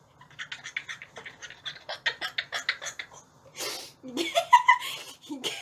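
A woman laughing hard and breathlessly in quick, wheezy pulses, about six to eight a second. Near the middle comes a sharp breath, then laughter with voice in it.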